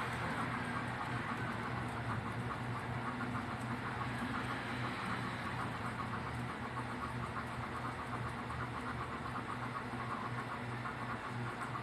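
Rapid, continuous clatter of keys being typed on computer keyboards during a typing test, over a steady low electrical hum.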